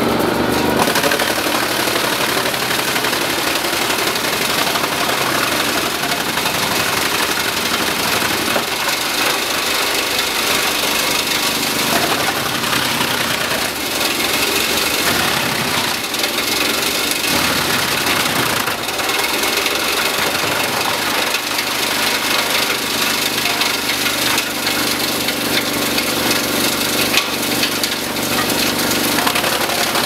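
Heizohack wood chipper running and chipping logs: a steady, loud machine noise with a few sharper knocks as wood is fed through and chips are blown out of the chute.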